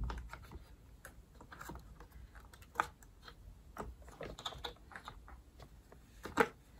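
Light, scattered clicks and taps of hard plastic vacuum parts being handled and fitted together, with two sharper clicks, one about three seconds in and one near the end.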